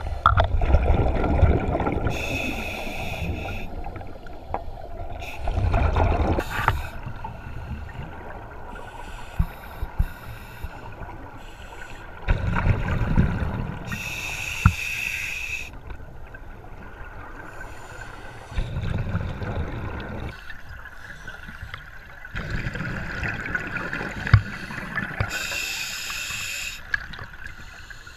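Scuba regulator breathing heard underwater: exhaled bubbles gurgle and rumble in swells every few seconds, with three short hisses of inhalation through the regulator between them.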